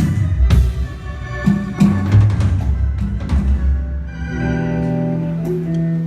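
Live band playing during a sound check: drum hits and fills over a bass line, then a sustained organ chord held from about four seconds in.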